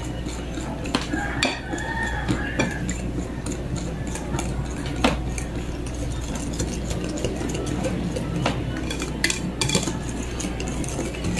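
Wire balloon whisk beating a thin rice-flour batter in a glass bowl, its wires clicking and tapping against the glass at an irregular pace, with a few louder clinks.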